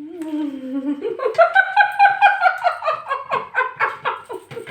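A person laughing: a drawn-out low note, then high-pitched laughter in quick pulses, about four a second.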